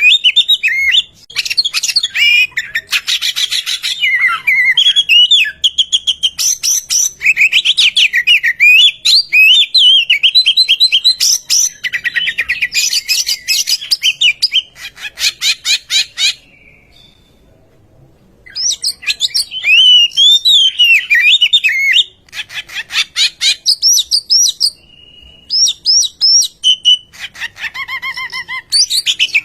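Oriental magpie-robin singing loudly: a fast run of varied whistled phrases mixed with rapid, stuttering rattle-like notes. There is a pause of about two seconds a little past the middle.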